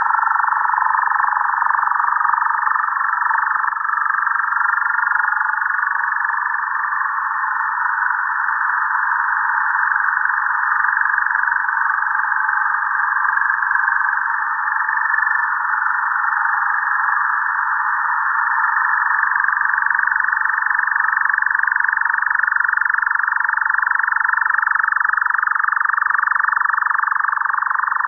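Shortwave receiver audio on 6660 kHz in lower sideband: a steady hiss of static squeezed through a narrow filter, with faint whistling tones that waver and glide in pitch. One whistle falls slowly in pitch over the second half.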